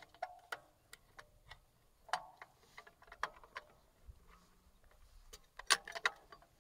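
Irregular metallic clicks and clinks of a hook, chain and anchor cable being handled while a hanging scale is hooked onto an earth anchor. A quick run of louder clinks comes near the end.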